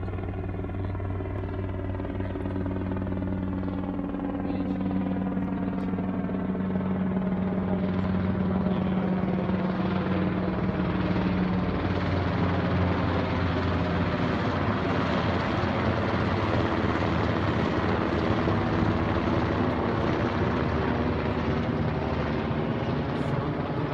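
Patrol helicopter flying overhead: steady rotor and engine noise that grows louder over the first few seconds and stays loud as it passes over.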